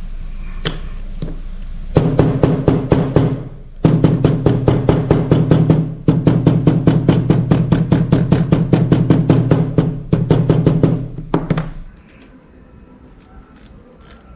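Background music with a fast, even beat and a steady bass, starting about two seconds in and stopping shortly before the end, after which only faint small handling ticks remain.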